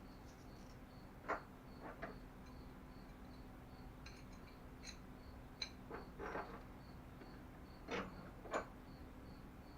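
A cricket chirps faintly and steadily, about three short high chirps a second, against quiet room tone. It is broken by scattered light clicks and knocks of small parts being handled, the loudest about a second in and near the end.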